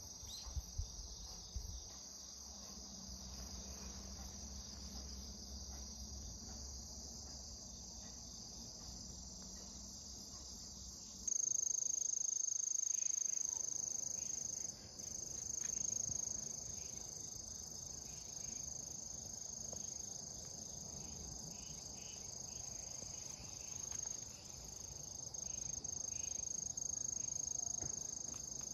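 A steady, high-pitched chorus of singing insects that gets louder about eleven seconds in, with a few brief bumps near the start.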